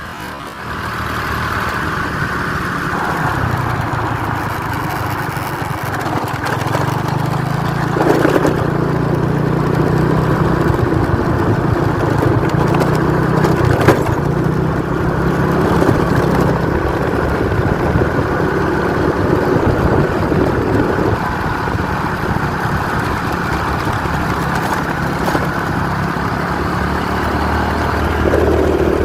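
An engine running steadily, its pitch shifting now and then, with a sharp knock about 8 seconds in and another about 14 seconds in.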